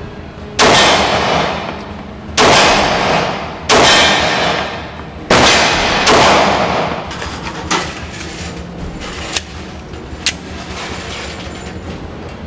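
H&K USP Compact .40 S&W pistol firing five shots, unevenly spaced over about six seconds, each ringing out in a long echo off the walls of an indoor range. Three much fainter sharp clicks follow later.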